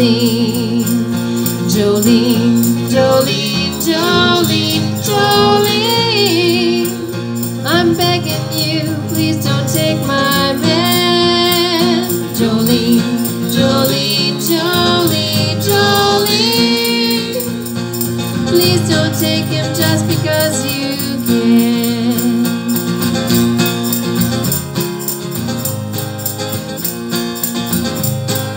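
Live acoustic cover of a country song: two acoustic guitars strummed, with a voice singing over them.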